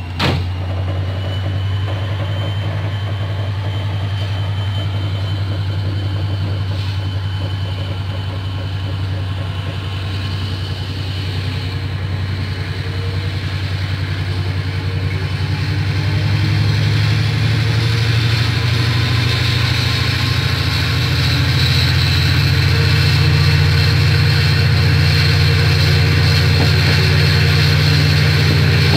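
Diesel passenger train's engine heard from inside the carriage as the train pulls away from a stop. It runs steadily at first, then rises in pitch and loudness about two-thirds of the way through as the train picks up speed. There is a short knock at the very start.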